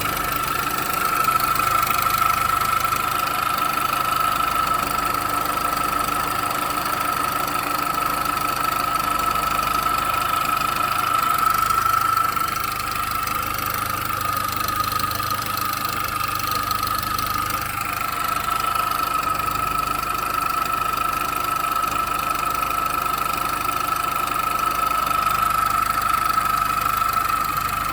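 Car engine idling, with a steady high-pitched whine over it: a noise that replacing the engine mount has not cured.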